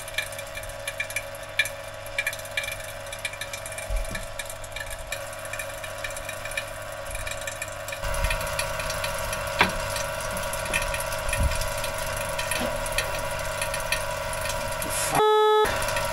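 Steady hum of a refrigeration vacuum pump running, evacuating a freshly repaired fridge system before it is regassed, with light clicks and clinks of metal tools being handled. Near the end, a short loud beep.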